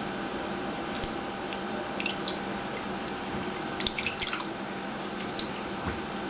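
Himalayan kitten pawing at the water in her water bowl: scattered small splashes and drips, with a quick cluster of splashes about four seconds in, over a steady background hum.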